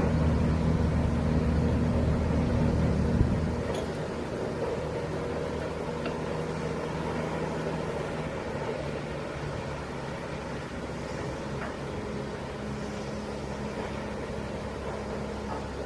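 Diesel engine of a Hitachi PD100 crawler pile driver running steadily. It drops to a lower, quieter running level about three seconds in.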